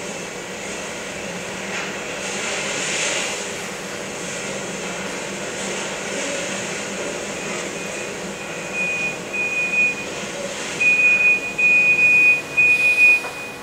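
Soundtrack of a sea-rescue video played over a hall's speakers: a steady rushing noise of the boat scene, then, from the second half on, a high steady tone sounding in a series of pulses that grow louder toward the end.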